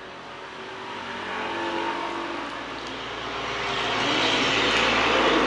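A motor vehicle's engine running and growing steadily louder as it approaches.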